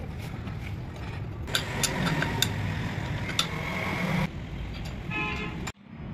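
Metal clinks of a spanner on the injection pump's fuel-line fittings, heard over a steady low rumble of traffic, with a short vehicle horn toot near the end.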